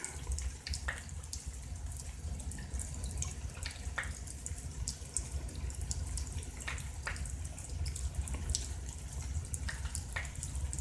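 Rain dripping during a storm: irregular drip ticks, a few louder ones, over a steady low background noise.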